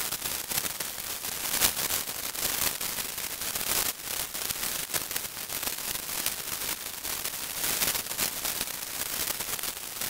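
Synthesized multifractal white noise from a cascade model: an even, full-range hiss broken by irregular crackles and brief louder bursts, like a senko hanabi sparkler fizzing.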